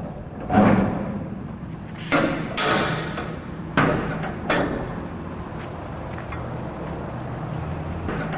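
Metal clanks of a shipping container's door latch handles and locking bars being worked by hand: about five sharp knocks with a short ring in the first five seconds, then a few faint taps over a steady low hum.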